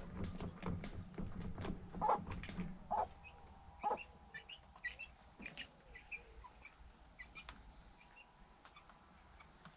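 Quick clicking and a few louder knocks from something being handled, for about the first four seconds. Then small birds chirping faintly, in short scattered notes.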